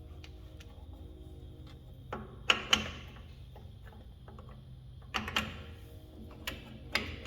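Sharp metallic clinks of hand tools and drum-brake hardware (shoes and return springs) being handled and fitted. Two loud clanks come close together about two and a half seconds in, then a few lighter ones near the end, over a steady low hum.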